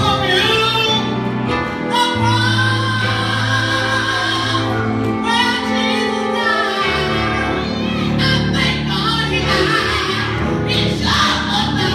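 A woman singing a gospel solo into a handheld microphone over instrumental accompaniment, holding and bending long notes above sustained bass notes that change every few seconds.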